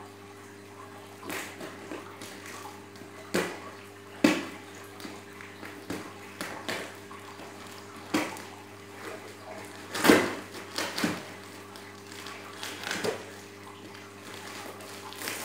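Knife cutting and tearing the plastic stretch-wrap on a cardboard shipping box: irregular crackles and rips, the loudest about ten seconds in, over a steady low hum.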